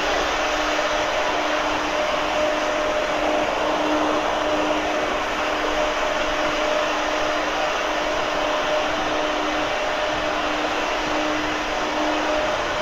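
Sandblasting nozzle blasting continuously, a loud, steady rushing hiss of compressed air and grit stripping old paint and rust from a boat hull, with a faint steady hum underneath.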